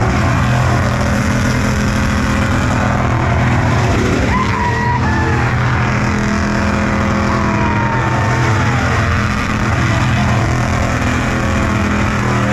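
Loud car engine running at one steady speed, its pitch unchanging, with a constant rush of noise over it.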